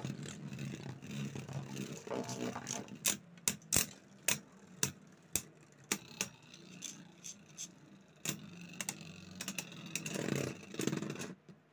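Two Beyblade Burst spinning tops whirring in a plastic stadium, with a run of sharp clacks as they collide, most of them between about three and six seconds in.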